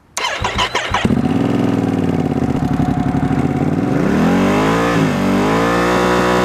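Ducati Panigale V2S V-twin breathing through a Termignoni full exhaust with its dB killers fitted: it starts with a few uneven firings, then runs steadily. About four seconds in it revs up and holds high revs, with a brief dip, for a sound-level check at 7,000 RPM.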